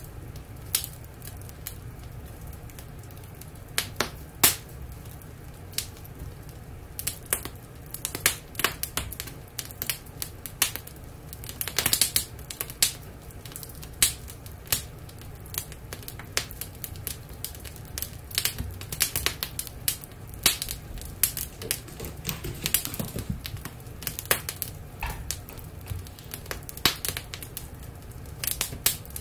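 Wood fire crackling in a fireplace: irregular sharp pops and snaps, coming in quick clusters at times, over a low steady hum.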